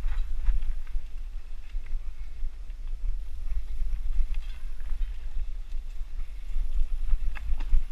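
Mountain bike riding over dirt singletrack: a heavy, steady wind rumble on the microphone, with the tyres rolling over leaf litter and stones and a few sharp clicks and rattles from the bike, two close together near the end.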